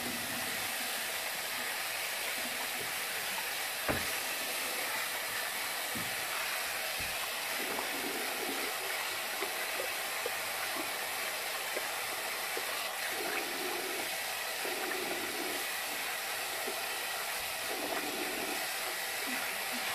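Bathroom sink tap running steadily while a face is rinsed by hand, with irregular splashing in the second half and a single knock about four seconds in.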